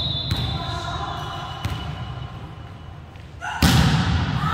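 Volleyball play in a gym hall: echoing ball thuds and a few sharp knocks. About three and a half seconds in, a sudden loud burst of crowd shouting and cheering.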